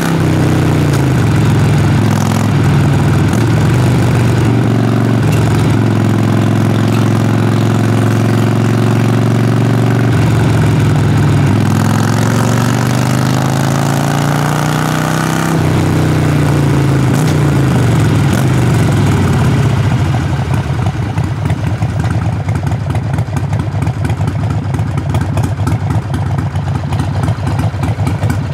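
Harley-Davidson Sportster Forty-Eight's V-twin exhaust under way, its pitch falling and rising as the revs change through gear shifts. About two-thirds of the way through it drops to idle, with separate uneven firing pulses.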